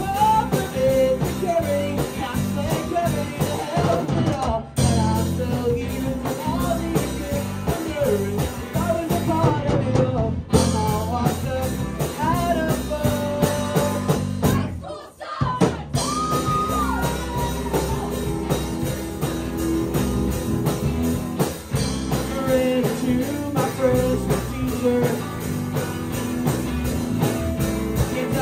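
Live rock band playing: lead vocals sung over electric guitar, bass and drums, with a brief stop in the music about fifteen seconds in.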